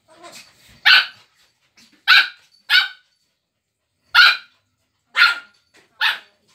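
A dog barking during rough play with another dog: six short, sharp barks spaced roughly a second apart.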